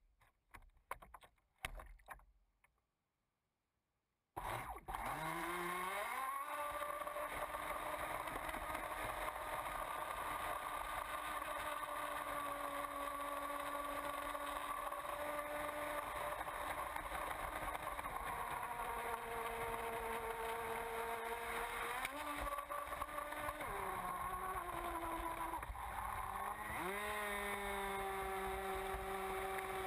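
An RC Miss Geico racing catamaran under way, heard from a camera mounted on the boat. Its electric motor's whine rises about four seconds in, then holds, stepping up and down in pitch several times with the throttle, over the rush and spray of water off the hull. Before that come a few knocks and handling clicks, then a moment of silence.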